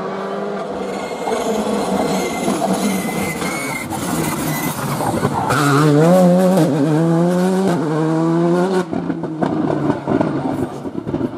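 Rally car engine approaching at speed, revs wavering up and down as it brakes and shifts through the turn, then climbing steadily as it accelerates away. About three-quarters of the way through the sound cuts to a second rally car approaching, more distant and noisier.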